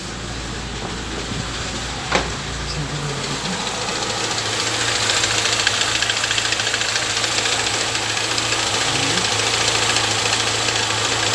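Chevrolet Niva's four-cylinder engine idling after months of standing, with a fast ticking knock that seems to come from under the valve cover. The sound grows louder over the first few seconds, with one sharp click about two seconds in. The owner blames oil that is too thin and drained down during the long standing.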